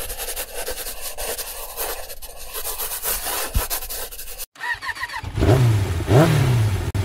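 Rough rubbing and wind noise on the microphone for the first few seconds. After a brief dropout near the middle, the Honda Forza 250 scooter's single-cylinder engine is heard revving, its pitch rising and falling twice as it gets under way.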